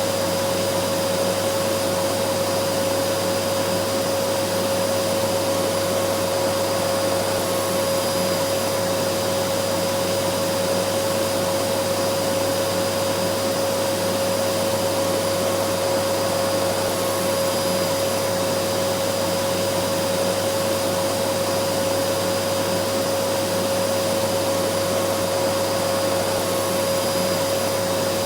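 Vacuum cleaner running steadily: a constant rushing of air with a steady whine held on one pitch, never changing in speed.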